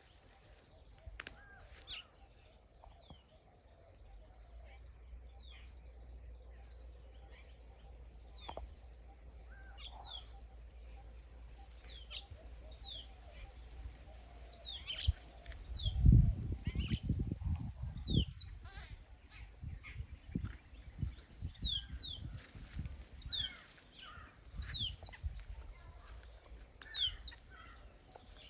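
Birds chirping: many short, high chirps that slide downward, repeating and growing busier in the second half. About halfway through there is a stretch of loud low rumbling, the loudest sound here.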